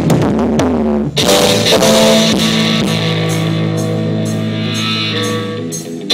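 Live pop-rock band playing, with electric guitar and drum kit. Long held notes, a brief dip about a second in, then a steady drum beat, heard through a cheap phone's microphone.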